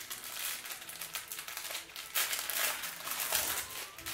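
Crinkly plastic candy wrapper being handled and worked at by fingers to get it open, a dense run of crackling that is loudest about two to three seconds in.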